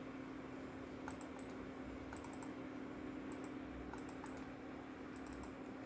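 Clicks from a computer mouse and keyboard being operated, coming in small quick clusters of two or three every second or so, over a steady low hum.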